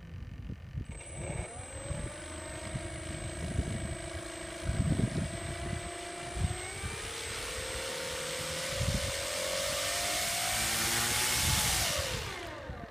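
RC Ju-87 Stuka model's motor spinning the propeller during a throttle check. A whine starts about a second in and holds steady at low throttle, then climbs slowly in pitch as the throttle is opened up, and drops quickly as the throttle is cut near the end.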